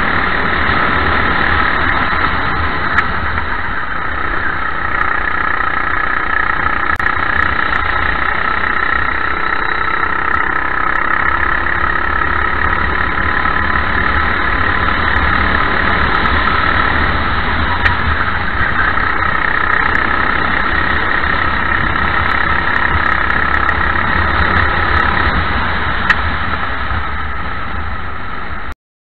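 Racing kart's engine heard from on board, running steadily at race pace as the kart laps the circuit. The sound cuts off suddenly near the end.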